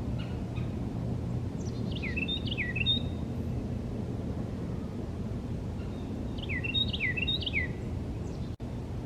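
Carolina wren singing: two bouts of its loud, rolling song, each a quick run of repeated falling whistled phrases, about four seconds apart, over a low steady outdoor rumble.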